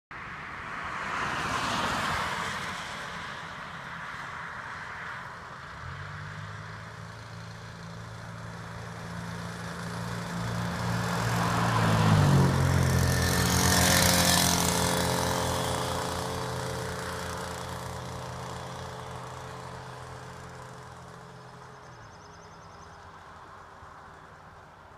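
Small single-cylinder bicycle engine from a Skyhawk engine kit running under way as the motorized bicycle approaches, passes with a drop in pitch about twelve seconds in, and fades away down the road. Broad rushing noise swells near the start and again just after the pass.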